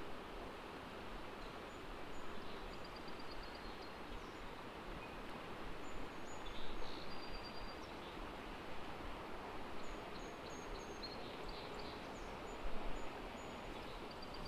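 Steady rush of a small river's flowing water, with faint high bird chirps now and then.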